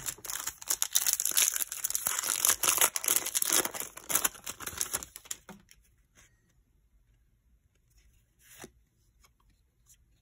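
A foil wrapper on a baseball card pack is torn open and crinkled for about five seconds. After that there is only faint handling of the cards and a single light tap.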